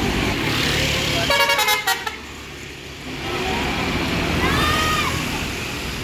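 Tour bus basuri horn, the multi-tone 'telolet' horn, playing a quick run of stepped musical notes for under a second, about a second in. Heard over bus engine rumble that swells again in the second half.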